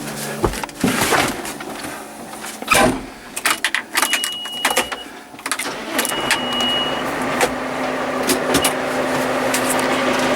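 Old McCormick tractor on the move, with repeated knocks and rattles of the machine for the first several seconds, then its engine running as a steadier drone from about six seconds in.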